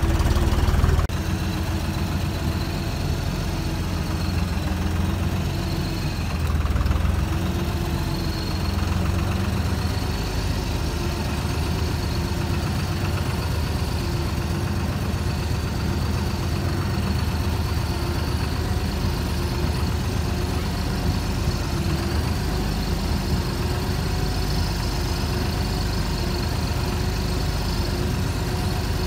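Deutz-Fahr tractor's diesel engine running steadily under way on a rough dirt track, heard from the driver's seat; it drops in level about a second in, then holds even.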